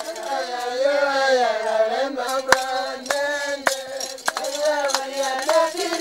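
A group of voices chanting together in a sustained, wavering melody, with scattered sharp clicks over it.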